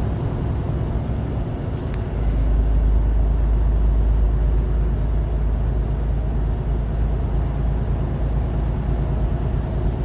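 Semi-truck engine and road rumble heard while driving, steady and low, stepping up in loudness about two seconds in.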